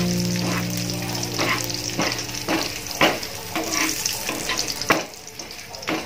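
Garlic, dried red chillies and curry leaves sizzling in hot oil. A wire skimmer is stirred through them, giving a sharp scrape against the pan about once a second.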